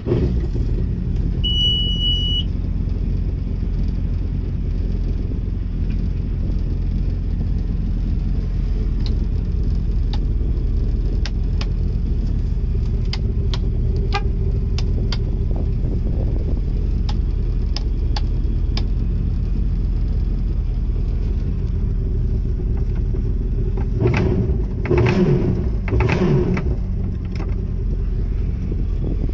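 Yamaha AR195 jet boat's 1.8-litre four-stroke engine idling steadily just after being started, heard at the helm. A short electronic beep sounds about two seconds in, with scattered light clicks, and near the end the engine runs louder for a few seconds, rising and falling.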